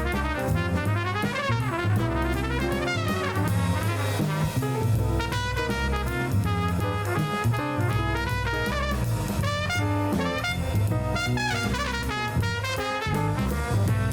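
Background music: upbeat jazz with brass and a drum kit.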